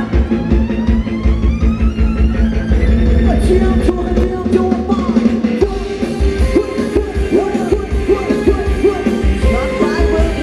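Live band playing Thai ramwong dance music loud, with a steady beat and singing. A rising sweep runs through the first few seconds.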